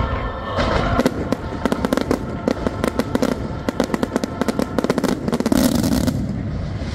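Fireworks display: a dense, rapid barrage of sharp bangs and crackles from many shells fired in rows. The barrage stops about six seconds in, leaving a softer hiss. Music plays under the first part.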